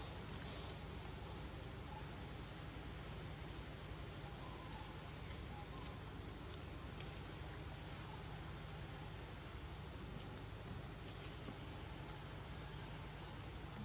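Steady high-pitched drone of insects in the surrounding vegetation, with a low steady rumble beneath.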